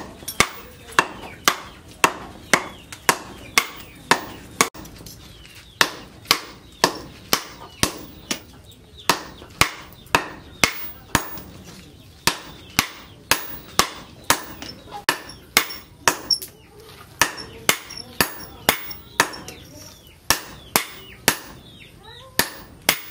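Sledgehammer blows striking red-hot leaf-spring steel on an anvil as it is forged into an axe. The blows are sharp and evenly spaced, about two a second, coming in runs with short pauses between them.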